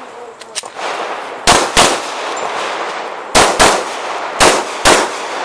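Pistol fired in three quick pairs of shots (double-taps) on a practical-shooting stage, each shot ringing out behind it. Two fainter clicks come before the first pair.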